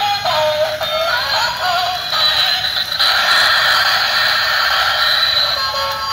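Battery-powered light-up toy race car playing its built-in electronic tune, a thin melody with no bass; for a few seconds in the middle a denser electronic sound effect fills in.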